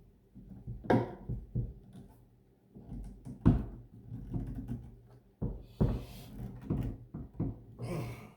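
Irregular knocks, thumps and rustling from the jet ski's plastic deck cover being handled and pressed by hand.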